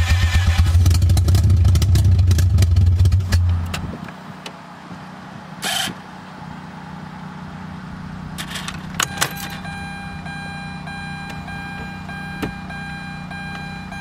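Starter cranking the freshly installed 13B rotary engine of a 2004 Mazda RX-8: a fast, even pulsing that stops about four seconds in without the engine catching. A few clicks follow, then a steady whine.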